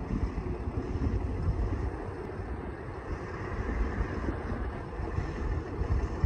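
Engine of a 2019 International ambulance running at low speed as it pulls out of the station bay, a steady low rumble with wind buffeting the microphone.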